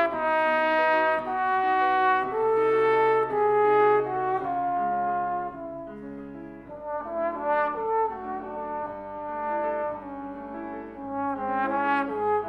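Trombone playing a melody in long held notes, with piano accompaniment. The playing is louder at first, drops softer for several seconds in the middle, and swells again near the end.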